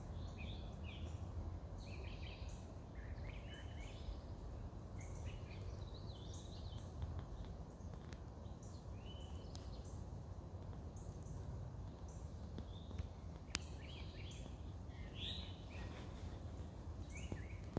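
Songbirds calling and singing on and off, short chirping phrases that come one after another, over a steady low rumble of outdoor background noise.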